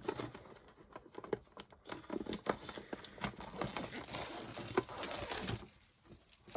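Packaging crinkling and tearing, with many small clicks and light taps, as a Pokémon card tin is unwrapped and opened; it goes quieter near the end.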